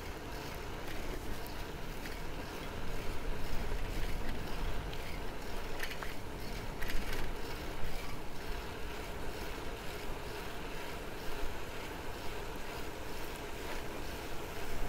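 Wind rushing over the camera's microphone as the bicycle rolls along, with a steady low rumble from the mamachari's tyres on the asphalt and a few light rattles about six to seven seconds in.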